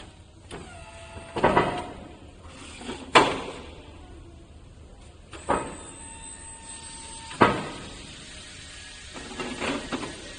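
Full-electric self-loading stacker lowering itself down to the floor: its electric lift mechanism runs with a steady whine, broken by four loud metal clunks about two seconds apart.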